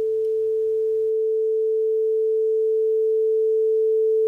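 A single steady electronic tone held at one pitch, slowly getting a little louder; a faint low background beneath it drops away about a second in.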